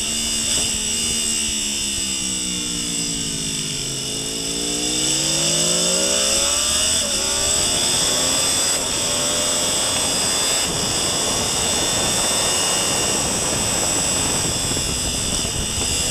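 Sportbike engine heard from on board at a race track. The revs fall as the bike slows and downshifts for a corner, then rise again as it accelerates out and up through the gears. A heavy rush of wind takes over once it is at high speed.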